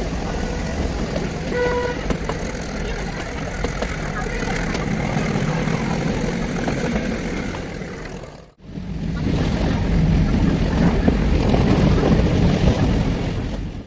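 Running noise of the Ooty toy train (Nilgiri Mountain Railway), a steady rumbling din. A short horn toot comes about two seconds in. The sound cuts out for a moment about two-thirds of the way through and then resumes.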